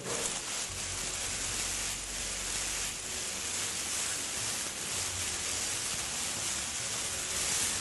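A steady, even hiss that starts suddenly and carries on without a break, with most of its strength high up.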